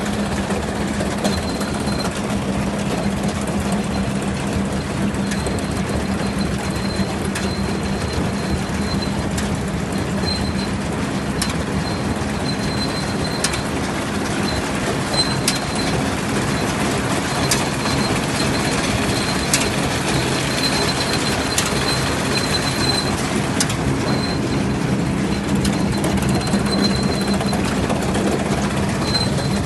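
New Holland 835 round baler running, driven by a tractor: a steady mechanical clatter of chains and rollers over the low hum of the engine, with scattered clicks and a high squeal that comes and goes.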